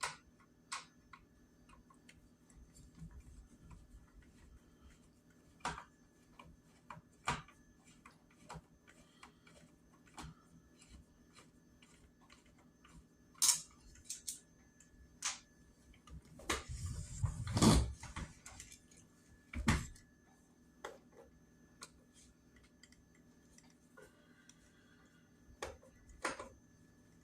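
Scattered light clicks and knocks of hand tools and the plastic and metal parts of a Kirby vacuum being handled during disassembly, with a louder rattle and knock about seventeen seconds in and another knock soon after.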